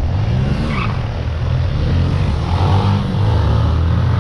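Motorcycle engine running while riding in traffic, its pitch rising and falling with the throttle, over a steady rush of road noise.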